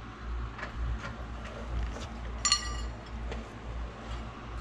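Light clicks and one short, ringing metallic clink about halfway through, over a low steady hum.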